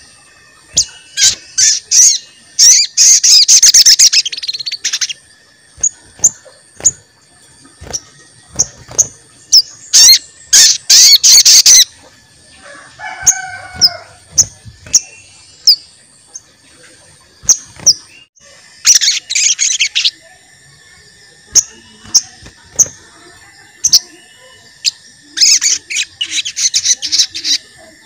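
Sogon bird singing its "cuit cuit" song: loud, sharp, high chirps repeated at irregular intervals, broken by several dense bursts of rapid chattering trill lasting a second or two each. This is the call of an actively singing ("gacor") sogon, used as a lure to make other sogon birds answer.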